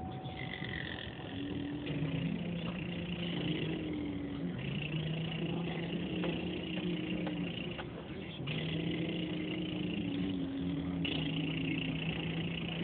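A car's engine and road noise heard from inside the cabin while driving: a steady low drone whose hum breaks off and resumes with small shifts in pitch every few seconds.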